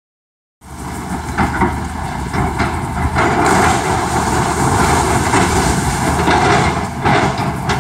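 Excavator engine running while the machine tears through a demolished house, with irregular loud cracks and clatters of breaking wood and metal debris over the steady rumble.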